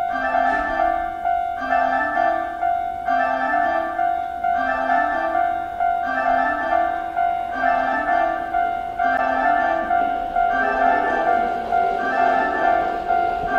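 Electronic train-approach chime on a Japanese railway station platform: a short electronic melody repeating about every 1.5 s over a steady held tone, warning that a train is coming in.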